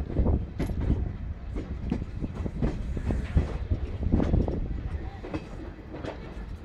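Kerala Sampark Kranti Express passenger train running at speed, heard from an open coach door: a steady low rumble with irregular wheel knocks and clatter from the rails.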